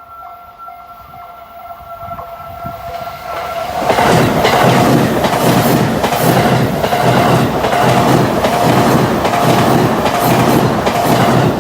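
A Chuo Line electric train passing at a level crossing. The crossing's warning bell dings steadily in a regular rhythm. About four seconds in, the train arrives and runs past loudly, its wheels clacking rhythmically over the rail joints, with the bell still ringing underneath until the train noise starts to fade near the end.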